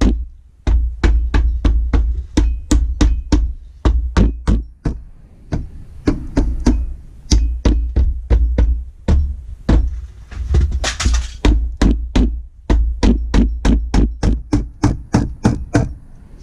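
Rubber mallet tapping repeatedly on the aluminium case of a Honda five-speed gearbox, about four knocks a second with a few short breaks, seating the second case half down onto its sealant to close the box. A brief rasping noise comes partway through.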